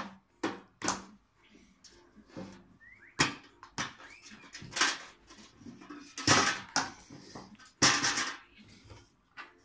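Ash vacuum being unpacked: sharp clicks and knocks as the clamps on its drum are unsnapped and the motor head is lifted off, with longer scraping rustles about six and eight seconds in.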